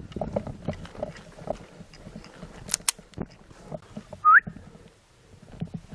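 Scattered soft thuds and rustling, two sharp clicks close together a little under three seconds in, and one short rising chirp about four seconds in, the loudest sound.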